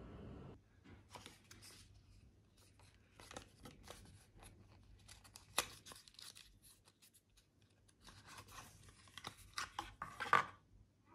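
Small cardboard cosmetics box being opened by hand: paper rustling and tearing with scattered clicks and taps, one sharp click about halfway through and a cluster of louder ones near the end.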